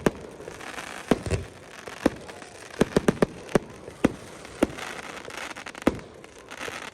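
Fireworks display: a string of sharp bangs at uneven intervals, about a dozen in all, with crackling between the bursts.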